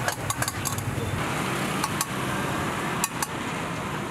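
Metal spoon clinking against stainless steel cups as ingredients are scooped in for an omelette: a quick run of about four clinks, then pairs near two and three seconds, over a steady background hum.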